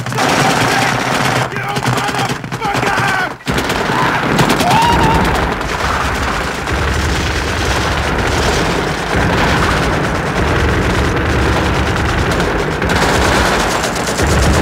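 Battle sound from a war film: heavy, sustained machine-gun and rifle fire with shouted voices, briefly cutting out about three and a half seconds in.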